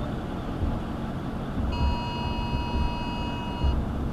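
Low road and engine rumble inside a moving vehicle, with a steady electronic beep tone that comes in a little under two seconds in and holds for about two seconds.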